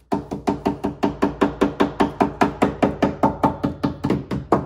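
Small hammer tapping quickly and evenly with its domed face on a car door's inner cover, pressing it onto the glue on the door panel. About seven taps a second, each ringing briefly.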